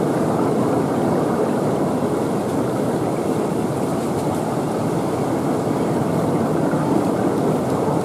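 Steady, loud background rumble with no distinct events.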